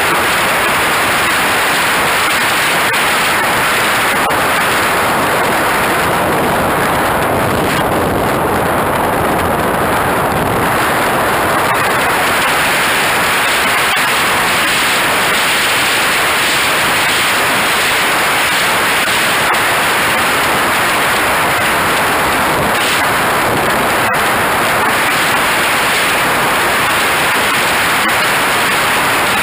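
Steady loud rushing of airflow over a radio-control jet's onboard camera in flight, mixed with the jet's engine noise, with no clear tone or pitch change.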